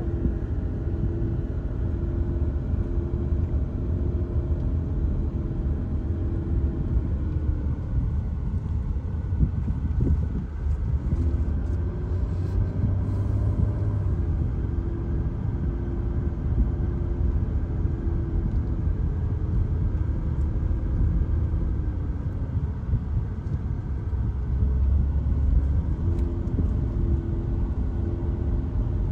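A car driving: steady engine and road rumble, with the engine note dropping and then climbing again a few times as the speed changes.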